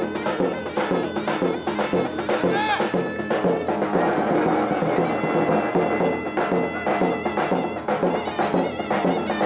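Traditional folk music: a shrill reed pipe playing a melody over a steady, regular drumbeat.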